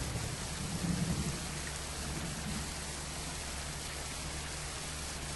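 Steady hiss of background noise much like light rain, with a low hum beneath it and a brief low swell about a second in.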